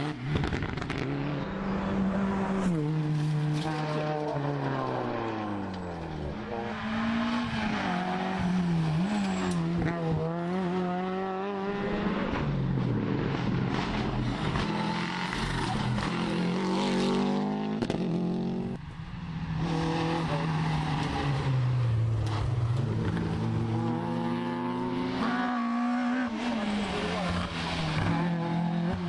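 Rally car engines revving hard as the cars pass one after another, the engine pitch climbing through the gears and dropping again on the lift-off and downshifts.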